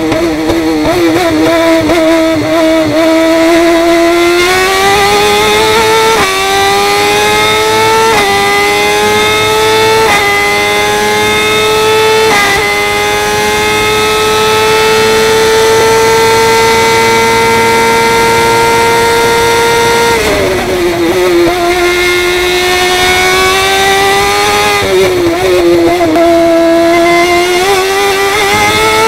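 F1000 formula car's motorcycle-derived 1000 cc engine at racing revs, heard from the cockpit. It climbs in pitch in steps with short drops between them, then holds high and nearly steady at full throttle on a long straight. About twenty seconds in the pitch falls sharply under braking and downshifts, then it revs up again out of the slow corner.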